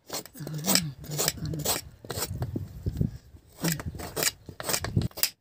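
A curved knife scraping the skin off a bottle gourd in short strokes, about two a second.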